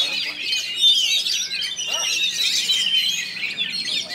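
Oriental magpie-robin (kacer) singing a fast, unbroken run of varied whistles, chirps and trills.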